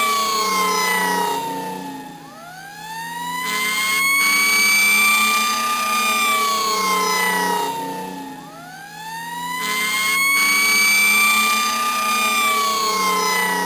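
Police siren sounding a slow wail: the pitch sinks and then climbs back up in long sweeps about every six and a half seconds, softer at each low point, over a steady low drone.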